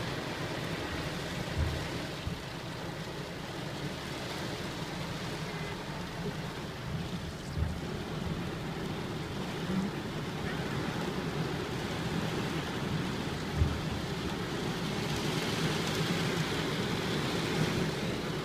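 Heavy rain pouring down in a steady hiss, with a few soft low thumps scattered through it.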